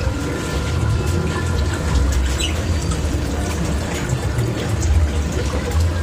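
Water trickling steadily over a low rumble, with a brief bird chirp about two and a half seconds in.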